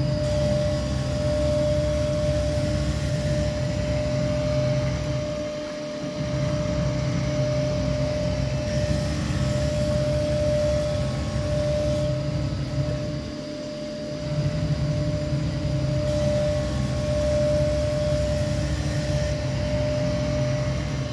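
Knife grinding machine sharpening a steel guillotine paper-cutter blade: a steady motor hum with a constant whine over a low rumble as the grinding head travels along the blade. The rumble drops briefly about every seven to eight seconds, where the grinding carriage reverses at the end of a stroke.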